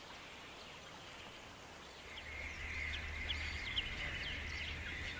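Marsh ambience: faint at first, then about two seconds in a chorus of birds comes up, many short chirps and calls over a steady high-pitched drone.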